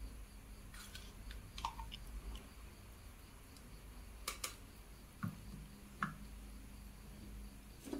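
Faint scattered clicks and light taps over a low steady hum, as ghee is poured into a non-stick pan on a lit stove and melts; the sharpest click comes a little after four seconds in.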